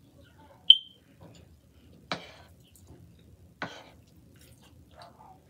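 A short, sharp high-pitched ping about a second in, then two sharp clicks about a second and a half apart.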